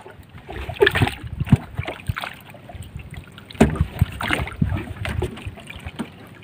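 Hooked needlefish splashing at the surface as it is hauled in by hand on a line, with irregular knocks and bumps against the wooden outrigger boat.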